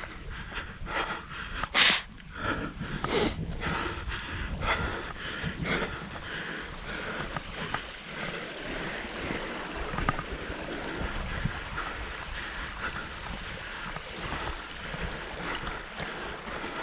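A hiker's footsteps on the trail with hard breathing, a loud rustle or breath about two seconds in, then a steady rushing noise.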